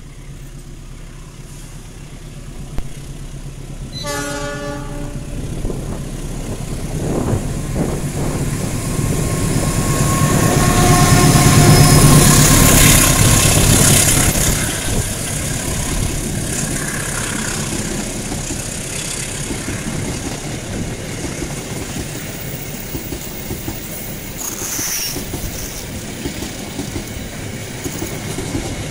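CC206 (GE C20EMP) diesel-electric locomotive sounds its horn briefly about four seconds in, then runs past with its engine rising to its loudest about halfway through. Its passenger coaches then roll steadily past on the track.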